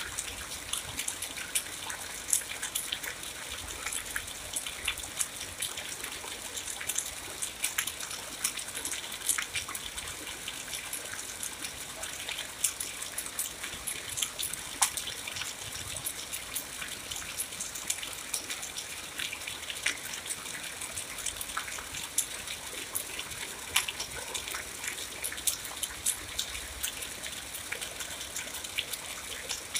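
Steady rain falling: an even hiss with many sharp, close drop hits scattered through it.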